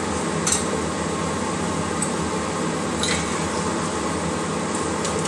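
Steady whooshing background noise with a low hum, as of a running appliance in the kitchen, with a few faint light clicks.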